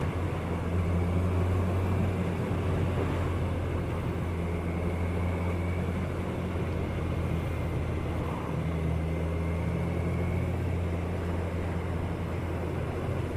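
Kawasaki ER-6n's parallel-twin engine running steadily at low speed, heard through a helmet camera with wind noise over it.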